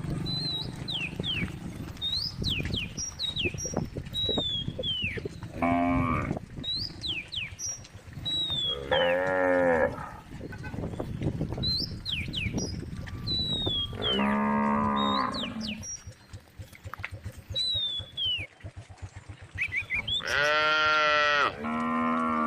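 Cows mooing: about five separate drawn-out calls of a second or so each, the last two close together near the end. Small birds chirp with quick falling notes between them.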